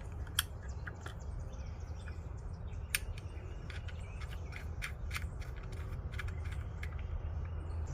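Small scattered clicks and taps of metal lock parts being handled and fitted to a keypad door handle, over a steady low hum.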